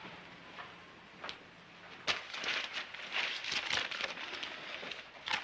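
Irregular rustling and scraping of things being handled, starting suddenly about two seconds in, after a quieter stretch with a single click.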